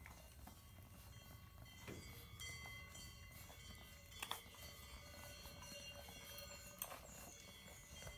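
Near silence: faint background with a few soft clicks, two about four seconds in and another near the end.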